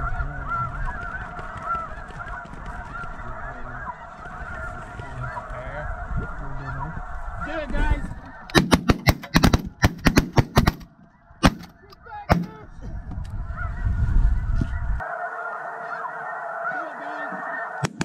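A dense chorus of snow geese honking throughout. About eight seconds in, a quick volley of shotgun shots from several guns, two more shots a second or so later, and more shots again near the end.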